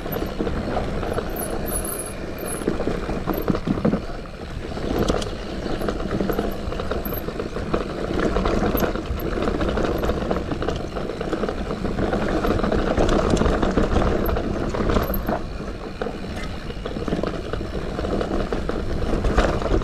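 Santa Cruz Heckler mountain bike descending a dry dirt singletrack: continuous tyre noise on the dirt with the bike's frame and chain rattling, and scattered small knocks over bumps.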